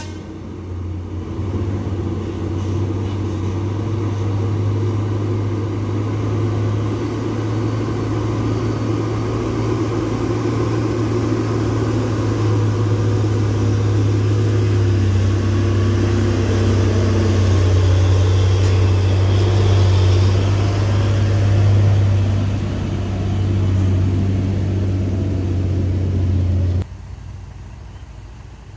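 Heavy Hino truck's diesel engine running hard under load on a steep climb, a steady low drone that grows louder as the truck comes close, then cuts off abruptly near the end.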